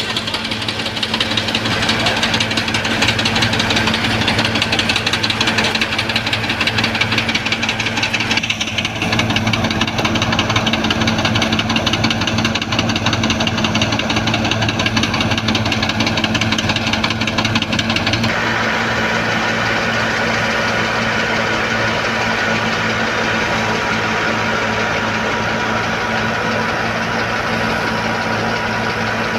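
Wheat thresher machine running with its engine, a steady mechanical drone. The sound changes abruptly twice, about 9 and 18 seconds in.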